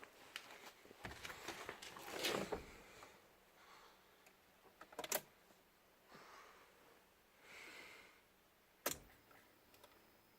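Faint handling noises: scattered light clicks and rustling, with two sharper clicks about five and nine seconds in.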